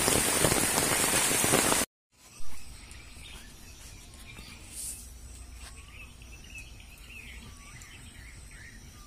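Steady rain falling, cut off abruptly about two seconds in. After a short knock, birds call in short chirps again and again over faint background noise.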